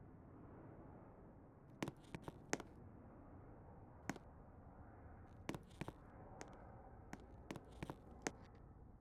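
About a dozen sharp clicks or taps at irregular intervals, some in quick pairs, over a faint steady hiss.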